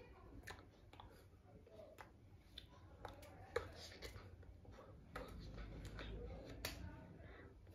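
Faint scattered taps and clicks of bare hands and fingers striking and brushing against each other as they make sign-language gestures, one a little sharper in the middle.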